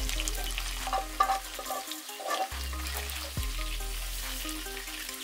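Whole climbing perch and eggs frying in hot oil in a wok: a steady sizzle with many small crackles.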